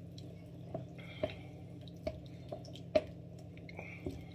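Wooden spoon stirring a thick, simmering chicken sauce in a pan: several soft knocks and wet squelches at irregular intervals, over a steady low hum.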